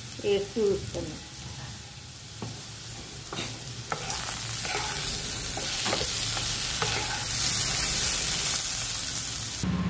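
Diced potatoes sizzling in hot oil in a kadai while a wooden spatula stirs and tosses them, with a few knocks of the spatula against the pan. The sizzle grows louder from about four seconds in as the potatoes are turned, then cuts off just before the end.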